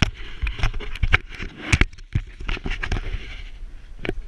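Irregular knocks, scrapes and wind buffeting from a handheld GoPro camera being jostled and swung around.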